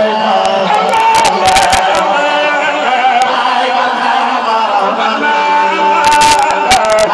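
Men chanting a Sufi devotional song through a microphone, in long held notes with melodic turns, the crowd joining in. A few sharp knocks come about a second or two in and again near the end.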